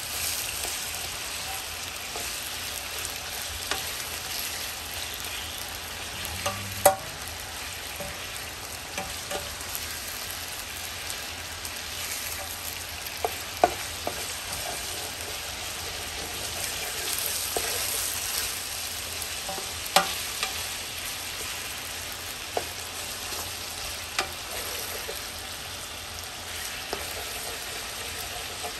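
Chicken thighs sizzling as they brown in hot oil in a pot, with occasional sharp knocks of a utensil against the pot as the pieces are stirred and turned.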